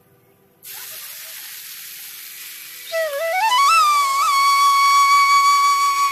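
Chopped saag leaves sizzling in hot oil in a kadai: a steady hiss that starts suddenly under a second in. From about three seconds in, background flute music with a sliding, held melody comes in over it and is the loudest sound.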